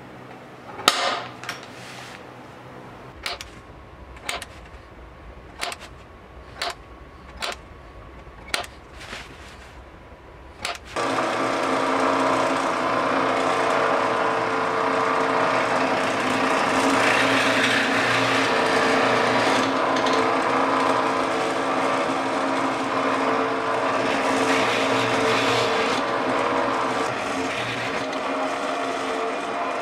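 A string of sharp taps, about one a second, as a pointed hand tool is pressed into a wooden drum shell at marked hole positions. About 11 seconds in, a drill press starts and runs steadily while a step bit drills holes through the shell.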